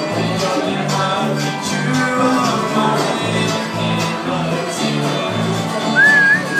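Bluegrass band playing live: fiddles, acoustic guitars and an upright bass, with the bass keeping a steady beat of about two notes a second. Near the end a high sliding melody line comes in over the band.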